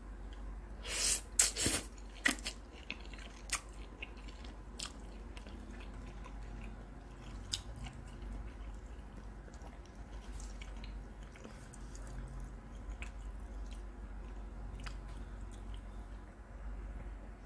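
Close-miked chewing of a mouthful of instant fried noodles, with a cluster of louder wet bursts about a second in, then quieter scattered mouth clicks.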